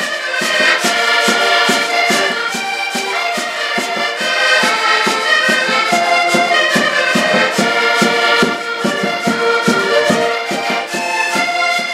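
Several accordions playing a traditional Portuguese dance tune together, the melody running over a steady beat of bass notes.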